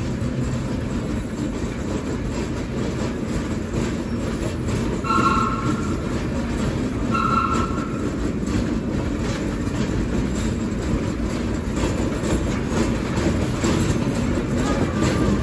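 Vintage R1/9 subway car running through an underground station: a steady rumble and clatter of wheels on rail. Two short high beeps sound about two seconds apart around the middle.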